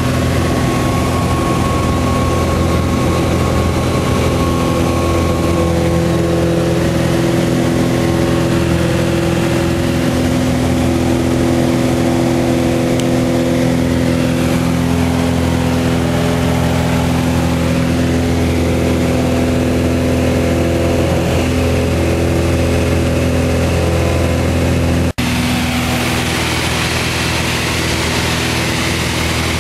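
Cabin noise of a Piper Turbo Arrow climbing out after takeoff: the turbocharged piston engine and propeller run at a steady drone with several steady tones under rushing air. The sound cuts out for an instant about 25 seconds in, then resumes with more airy hiss.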